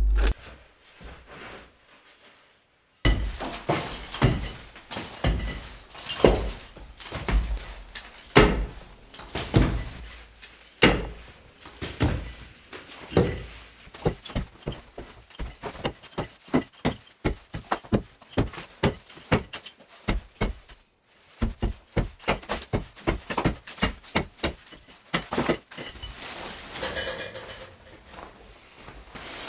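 Demolition work: irregular heavy hammer blows breaking up masonry, with rubble clinking and falling. About three-quarters of the way through comes a quick run of several strikes a second.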